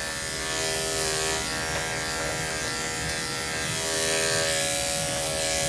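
Andis 5-speed electric dog grooming clipper, fitted with a two guard, running with a steady motor hum as it clips the hair on a small dog's head.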